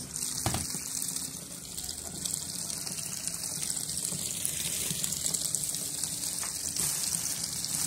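Water running steadily from a tap into the tub of a Dako tanquinho loaded with clothes, filling it for the wash; the flow comes on right at the start.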